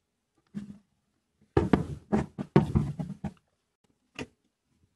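Wooden plow plane and small hand tools handled and set down on a wooden workbench: a short clatter, then about two seconds of knocks and rattles, and a single sharp click near the end.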